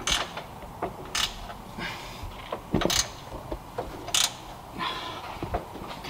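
Metal tools and car parts clicking and knocking while working on a car, about six sharp strikes at irregular intervals.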